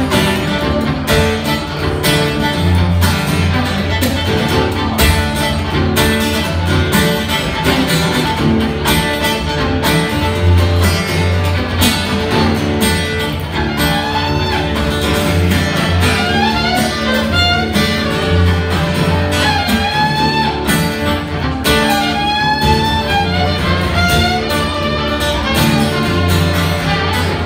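Fiddle played live, bowing a fast tune over a plucked-string accompaniment and a steady low bass pulse. Around the middle of the passage the fiddle slides and bends its notes up and down.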